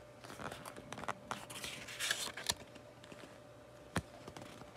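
Pages of a 6x8 patterned paper pad being turned by hand, with a soft rustle and scrape of paper and a sharp tap about four seconds in.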